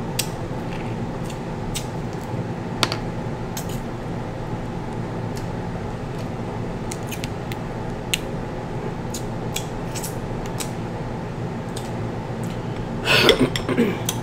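Snow crab leg shells cracking and snapping between the fingers: scattered sharp clicks over a steady background hum. Near the end comes a short, louder burst of eating sounds at the mouth.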